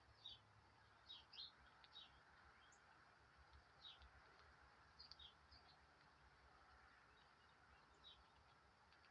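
Faint, scattered short bird chirps, each a quick downward sweep, about ten in irregular succession over a low steady hum.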